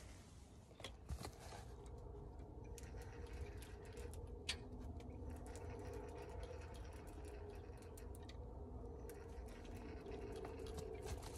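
Faint ticking and whirring of a fishing reel being cranked to bring in a hooked channel catfish, with scattered small clicks over a low steady hum.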